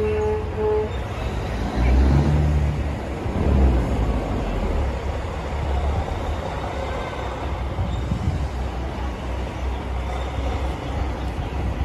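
A truck horn blast ending under a second in, then the low rumble of diesel semi-trucks driving slowly past, loudest around two to four seconds in.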